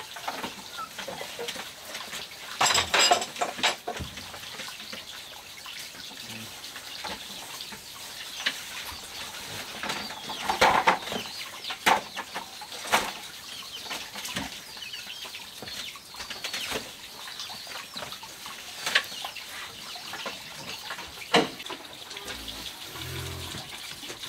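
Steady faint trickle of running water, with short sharp clucks from chickens now and then, the loudest about three seconds in and again near the middle.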